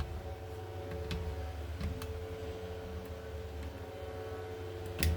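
Insulation being stripped off the end of a copper electrical wire with a hand tool: a few light clicks and a sharper click near the end, over a steady low hum.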